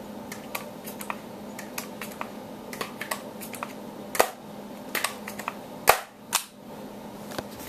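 Scattered light clicks and knocks of handling, the sharpest a little after four seconds and twice near six seconds.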